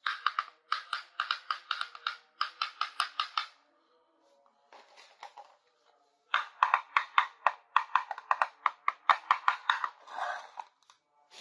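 Rapid runs of small hard plastic clicks and rattles, several a second, from toy kitchen parts being handled and fitted together, stopping and starting in bursts, over faint background music.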